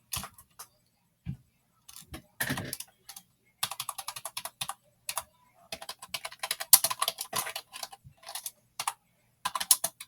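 Computer keyboard keys being pressed and typed on, in quick irregular flurries of clicks with short pauses between, and one heavier knock about two and a half seconds in.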